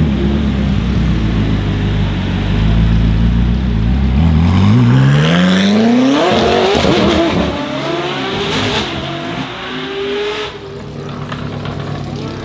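Koenigsegg Jesko Absolut's twin-turbo 5.0-litre V8 running at a low, steady idle, then accelerating hard about four seconds in, its note climbing steeply in pitch. The sound then fades as the car pulls away into the distance.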